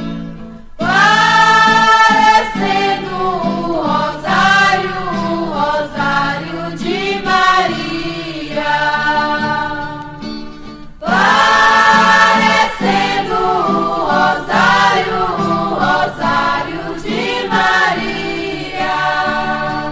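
Background music of a choir singing, with long held phrases that break off briefly near the start and again about halfway through.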